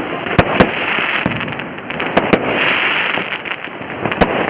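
Diwali firecrackers going off: a dense, continuous crackle that swells and fades, with a few sharp, loud bangs on top, two close together near the start and more about halfway through and near the end.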